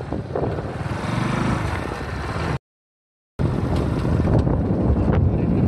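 Motorcycle engine running under way, with rushing noise from riding. About halfway through, the sound drops out completely for under a second, then resumes the same.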